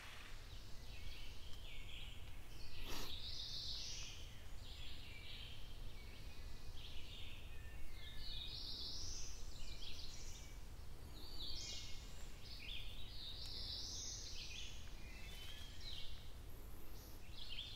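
Several songbirds chirping and singing in hardwood woods, their calls coming one after another, over a steady low rumble. A single sharp click about three seconds in.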